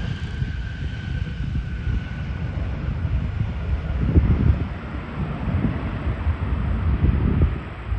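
Boeing 717-200's Rolls-Royce BR715 turbofans, a high whine slowly falling and fading over the first couple of seconds, over a heavy low rumble that swells about four and seven seconds in.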